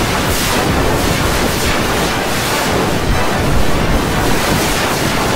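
Loud, steady wash of dense noise with no clear pitch or beat: a keyboard-and-voice song put through stacked audio effects until it is distorted past recognition.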